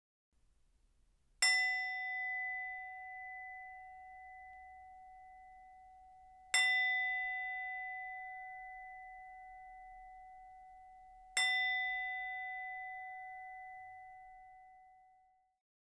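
A meditation bell struck three times, about five seconds apart. Each strike rings out clearly and fades slowly.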